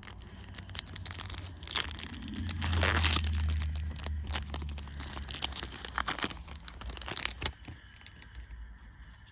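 Yu-Gi-Oh booster pack's foil wrapper being torn open and crinkled in the hands, a dense crackling that is loudest about three seconds in and dies down after about seven and a half seconds.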